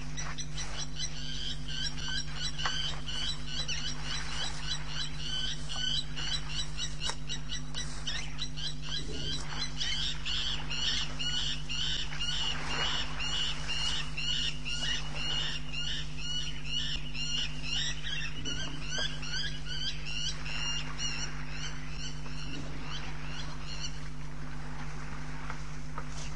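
Frog chorus: many rapid high-pitched chirps overlapping, fading out a couple of seconds before the end, over a steady low electrical hum.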